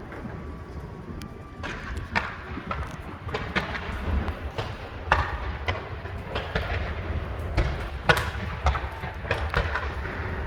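Fireworks going off: irregular sharp bangs and crackles, a few each second, over a steady low rumble.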